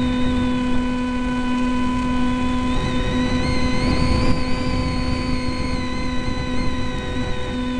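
EasyStar RC plane's brushless electric motor and propeller heard from the onboard camera. A high whine rises in pitch about four seconds in and then eases back, over a steady hum and rushing airstream noise.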